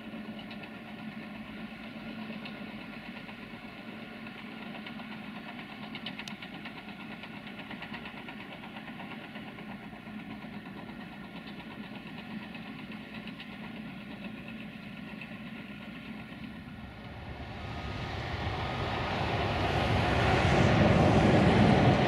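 Caterpillar crawler bulldozer's diesel engine running steadily at a distance, a constant low hum with a light diesel clatter. In the last few seconds a much louder rushing noise swells up and covers it.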